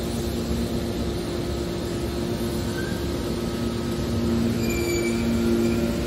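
Hydraulic power unit of a large scrap-metal baler running, a steady drone with a two-tone hum that gets louder about four seconds in. A brief high squeal comes in at the same time.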